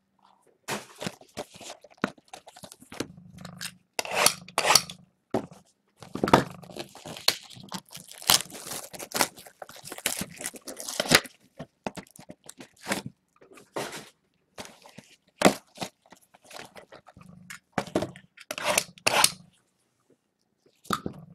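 Plastic wrapping of trading-card boxes and packs being torn open and crinkled, in short, irregular crackles and rips.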